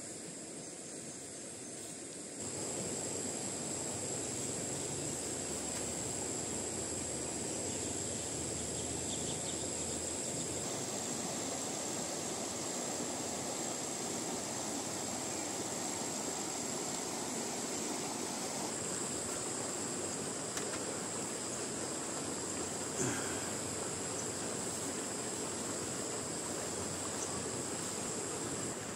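Shallow river rushing over rocks as a steady, even rush of water, with insects trilling on one high, unchanging pitch above it. The water noise steps up a couple of seconds in.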